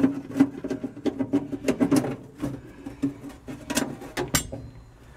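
Screwdriver backing screws with star lock washers out of the steel firewall plate: a quick, irregular run of small metallic clicks and scrapes.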